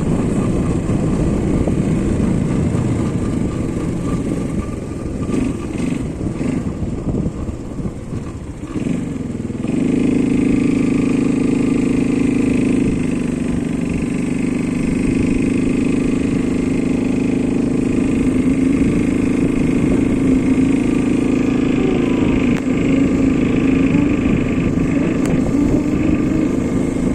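ATV engine running as it is ridden, dropping off briefly about eight seconds in, then holding a steady, higher pitch.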